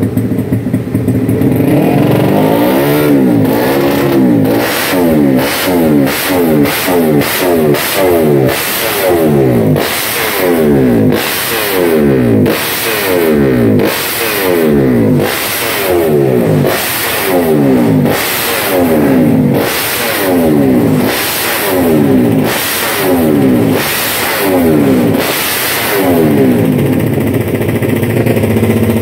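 Race-prepared Honda GTR150's single-cylinder four-stroke engine, open exhaust, revved in quick throttle blips about once a second, each rev climbing and falling back. It settles to a steady idle near the end.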